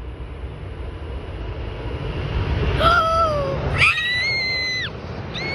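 Jet airliner noise rising as a plane approaches, with several high-pitched squeals starting about three seconds in.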